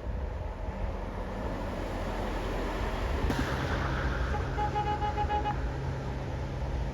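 Heavy road vehicle, a bus, running close by with a steady low engine rumble. A little after halfway, a rapid string of short, high horn beeps lasts about a second.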